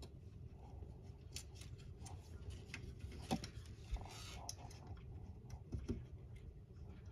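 Faint, scattered clicks and light taps of small plastic model-kit parts being handled and fitted, with a brief scrape or rustle about four seconds in.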